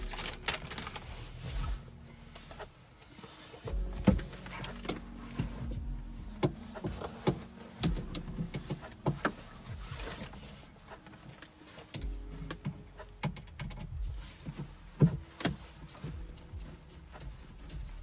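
Clicks, taps and knocks of plastic and metal parts being handled and unscrewed while a car door panel is taken apart. A small electric motor hums twice in short spells, about four seconds in and again about twelve seconds in.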